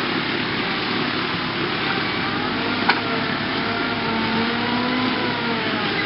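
Wood chipper running: a steady engine under a dense grinding rush, its pitch wavering slightly, with one sharp crack about three seconds in.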